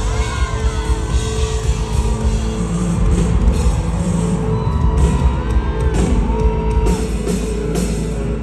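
Live rock band playing, with drums and electric guitar loud and steady and some sliding vocal or guitar lines over them.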